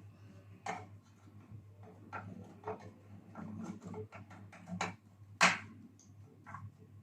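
Scattered light clicks and taps of hand work on the opened Sharp R-219T microwave's internals, with one louder knock about five and a half seconds in, over a steady low hum.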